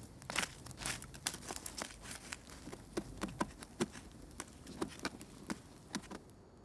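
Open fire crackling and popping under a metal grill grate, with irregular sharp pops several times a second; the pops stop near the end.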